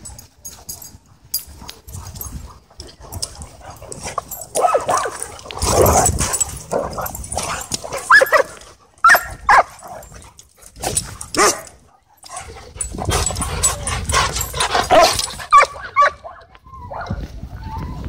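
Dogs play-wrestling, barking and yipping in repeated short bursts.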